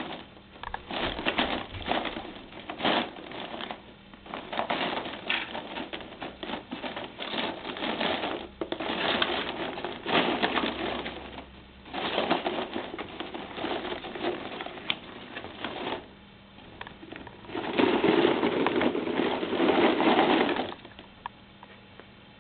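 Plastic ping pong balls clattering against each other and the cardboard box as a ferret burrows and bobs through them, in irregular bursts of clicks and rustling. The loudest burst comes near the end, then stops.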